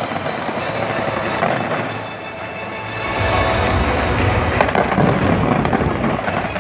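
A dense fireworks barrage, crackling continuously with sharp cracks and booms. It gets louder and deeper from about three seconds in, with music underneath.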